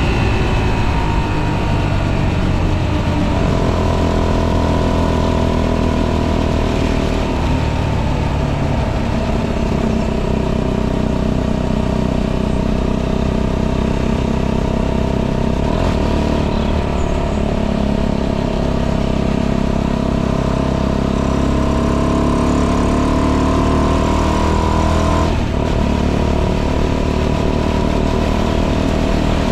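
A tuned 125cc motorcycle engine, fitted with a modified intake and exhaust and with ignition advanced to 42 degrees, is heard on the move from the rider's seat. Its note falls away at first and steps down a couple of times as the speed changes. It then holds a fairly steady pitch that creeps slowly upward before dropping off sharply near the end.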